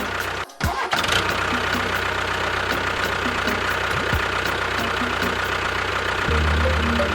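A small motor running steadily with a rattly, knocking edge. It drops out briefly about half a second in, then continues; steady music tones come in near the end.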